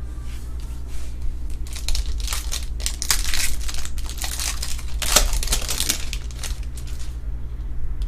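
Plastic wrapper of a trading-card pack crinkling and tearing as it is ripped open, in an irregular run of crackles from about two seconds in to near the end, loudest about five seconds in. A steady low hum lies underneath.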